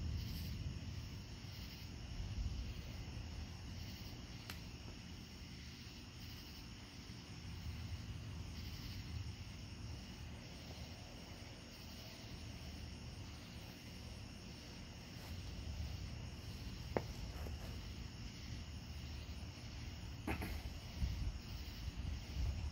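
Distant thunder rumbling low and unevenly, swelling and fading, over crickets chirping steadily. A few sharp clicks stand out, mostly in the second half.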